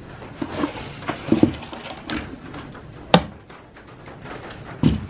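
Irregular clicks and clunks from handling the metal mechanism of a 1950s Olympia Deluxe manual typewriter, with one sharp click about three seconds in.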